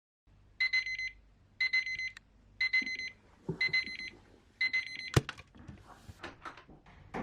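Electronic alarm clock beeping: five short bursts of rapid high beeps, about one a second. A sharp click comes just after five seconds and the beeping stops, followed by faint rustling.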